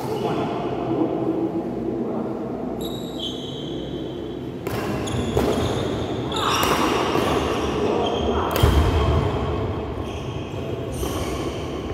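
Badminton rally in an echoing indoor hall: sharp racket strikes on the shuttlecock, about five of them from around five seconds in, with shoes squeaking briefly on the court floor and voices in the background.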